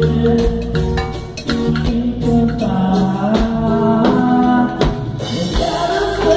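Live band playing a samba song: a singer over drum kit and other instruments.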